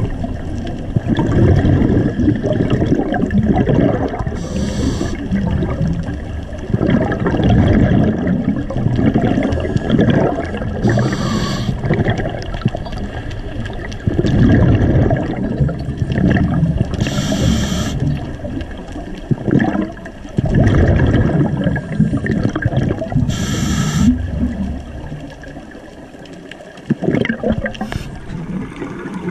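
Scuba diver breathing through a regulator underwater: four short hissing inhales about six and a half seconds apart, each followed by the bubbling rumble of the exhale.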